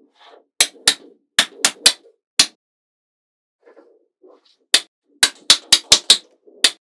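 Magnetic balls snapping together one at a time: a run of sharp clicks in the first couple of seconds, a pause, then a quicker run of clicks near the end, with soft rustling between.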